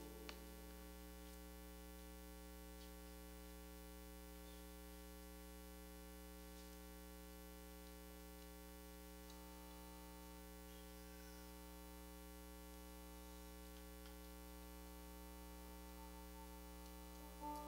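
Near silence: a steady low hum with a few faint ticks.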